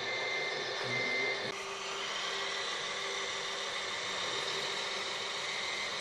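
Radio-controlled scale model Liebherr 736 bulldozer running: a steady motor hum and whine, with a brief higher tone near the start and a change in the upper noise about one and a half seconds in.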